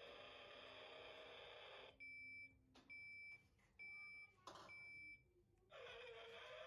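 Electronic sound effects from a battery-powered toy car's small speaker: a rough engine-like noise for about two seconds, then four short beeping horn notes about a second apart, then the engine-like noise again near the end.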